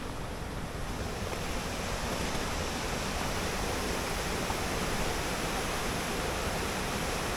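Rushing water of a waterfall, a steady rush that grows a little louder and fuller about a second in.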